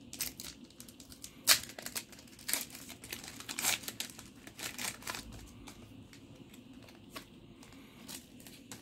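Foil Pokémon booster pack wrapper being torn open and crinkled in sharp crackles. The loudest come about one and a half seconds in and again near four seconds, with only faint rustling in the second half.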